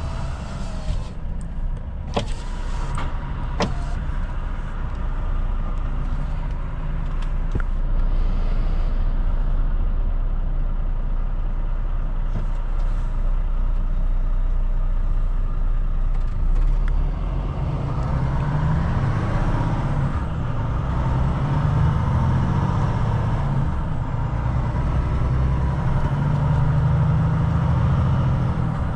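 Volvo FM4 truck's diesel engine running steadily on the move, with road noise; a few sharp clicks come about two to three seconds in, and the engine note grows louder about two-thirds of the way through.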